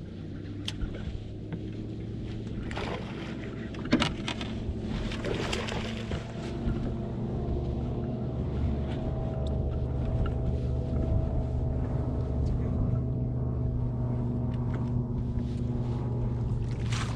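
Steady hum of a bass boat's motor, with a few sharp knocks and rustles about three to six seconds in while a largemouth bass is played on rod and reel.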